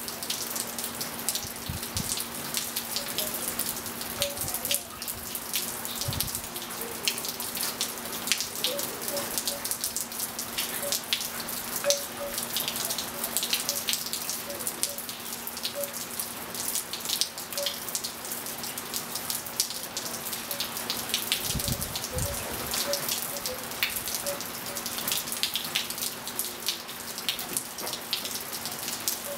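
Steady rain falling on a swimming pool and wet patio tiles, with many sharp drips. Short, soft wind chime notes sound irregularly throughout, over a steady low hum.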